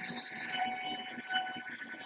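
CNC router spindle running with a steady high whine over a rough rasping noise as it carves a wooden door panel.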